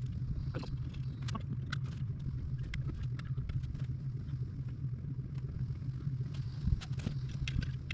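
Scattered small clicks, scrapes and rubbing as a rubber inner tube and tire are worked by hand onto a dirt bike wheel, over a steady low hum.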